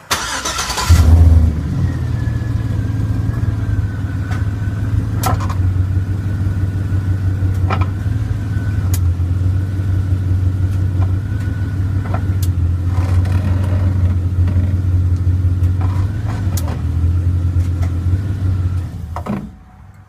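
The truck's 5.3 L Vortec V8 is cranked and starts, flaring loudest about a second in, then idles steadily until it is shut off shortly before the end. A few sharp clicks or knocks sound over the idle.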